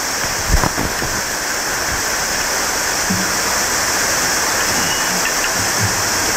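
Steady rushing hiss like running water or rain, picked up by a microphone on a metal probe rod pushed into the ground, with one sharp knock about half a second in. The listeners take this pouring sound for a tunnel being dug underground by machine.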